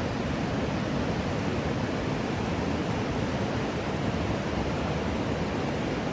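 Whitewater river rapids rushing in a steady, even roar of water.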